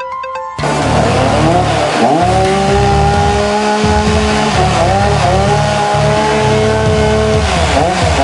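Stihl rescue saw's two-stroke engine running and being revved: the pitch rises and holds for a couple of seconds at a time, drops back, then comes several quick revs near the end.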